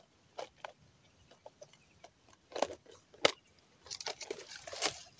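Hand-handling of a fishing lure and its plastic tub: scattered small clicks and rustles, with two sharper clicks in the middle and a crackly cluster of rustling near the end, as a skirted lure is readied to clip onto the line.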